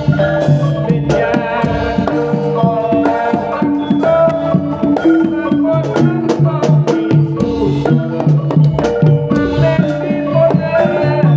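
Javanese jaranan ensemble music: hand drums struck in a busy, steady rhythm under sustained pitched melody notes and metallic percussion.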